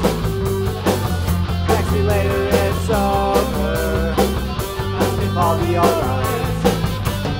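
Rock band playing live: electric guitar, electric bass, Tama drum kit with cymbals, and Korg keyboard, with a steady drum beat under a bending melodic line.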